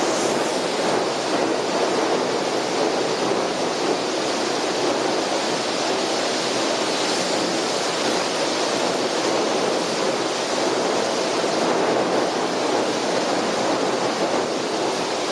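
Steady rushing noise of storm wind and rough sea, even throughout with no single crash standing out.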